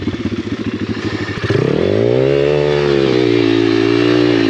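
Apollo RFZ pit bike's swapped-in 150cc single-cylinder engine lugging at low revs, then revving up sharply about a second and a half in and holding high revs under load on a steep rocky climb.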